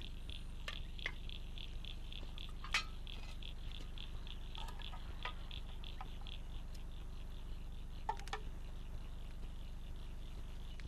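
Steady rhythmic chirping of insects, about four pulses a second, with a few light clinks of a ladle and plate at a cooking pot, the sharpest about three seconds in.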